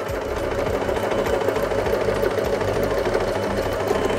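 Usha Janome Excella DLX electric sewing machine running steadily at speed, sewing a zigzag stitch, with a fast, even rattle from the needle mechanism.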